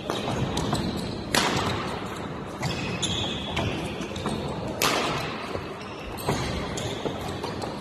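Badminton rally: sharp cracks of rackets striking the shuttlecock, echoing in a large sports hall, the loudest about a second and a half in and near five seconds in, with short squeaks between.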